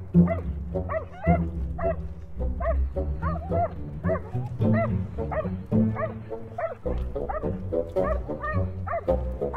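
A reactive dog barking and yelping frantically, short high barks about two to three a second without a break, over background music. It is the barking of an over-aroused, leash-reactive dog.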